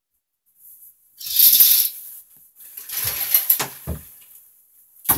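Rustling and scraping in two stretches, the first bright and hissy, the second with a few soft knocks in it, then a sharp click near the end. These are handling noises in a small bathroom as a small dog is set down by the tub and the shower curtain is moved.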